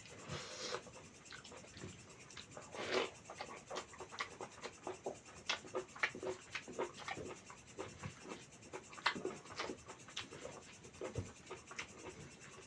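Close-up chewing and mouth sounds: irregular wet smacks and clicks of someone eating mutton curry with rice.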